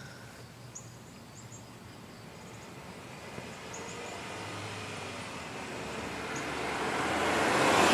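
A car driving along the street toward the microphone, its tyre and engine noise growing steadily louder as it comes to pass close by near the end.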